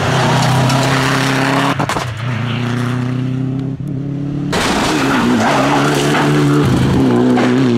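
Rally cars at speed on a tarmac stage: a Subaru Impreza's flat-four engine held at high revs as it passes, then a Škoda Fabia R5 rally car's engine, its pitch rising and falling as the driver works the throttle through a corner.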